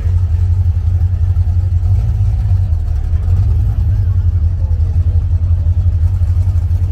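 Classic muscle car's engine running at low speed as the car rolls slowly past, a deep, evenly pulsing exhaust rumble with no revving.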